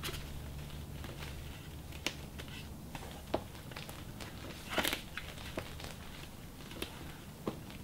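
Handling noises from fitting the plastic car enclosure and its fan: scattered small clicks and crinkles, with one louder rustle about five seconds in, over a steady low hum.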